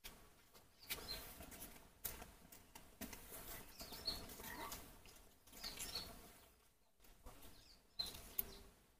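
Faint outdoor ambience: scattered rustling and clicking, with a few short high chirps.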